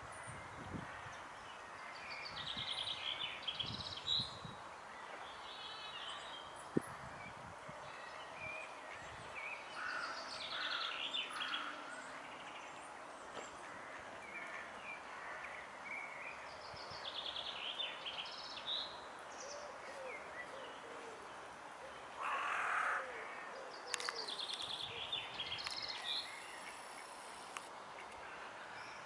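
Small birds singing in the background, short trilled phrases recurring every few seconds over a steady outdoor hiss, with one brief louder burst of noise a little after two-thirds through.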